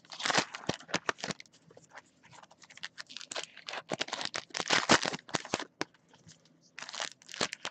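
Trading card pack wrappers being torn open and crinkled by hand, in irregular crackly bursts with a couple of short pauses.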